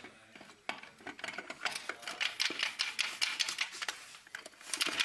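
Metal parts of a Ford 6R80 six-speed automatic transmission's direct (B) clutch assembly clinking and rattling against each other and the aluminium case as the assembly is worked into place by hand: a rapid, irregular run of small metallic clicks.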